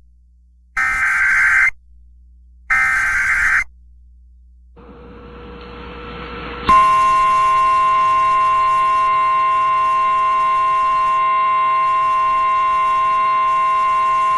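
EAS / NOAA Weather Radio alert header: two buzzy digital data bursts, each about a second long and a second apart. After a gap, a faint hiss rises, and about halfway through the steady 1050 Hz weather-radio warning alarm tone starts and holds, signalling a new warning to follow.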